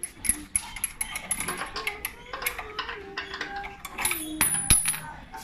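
Steel tubular box spanner clinking and tapping against a motorcycle's front fork and brake caliper as a bolt is worked, a string of sharp metallic clicks with one louder knock about four and a half seconds in.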